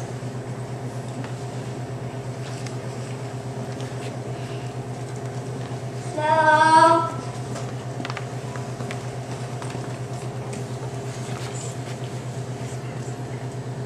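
A steady low hum, with a high voice calling out once for about a second, some six seconds in.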